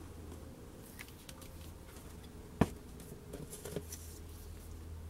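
Small plywood parts and a plastic wood-glue bottle being handled: light scattered clicks and taps, with one sharp knock a little past halfway, over a steady low hum.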